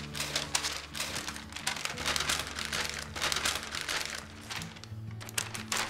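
Parchment paper crinkling and rustling as a sheet is peeled back and lifted away, a run of irregular crackles.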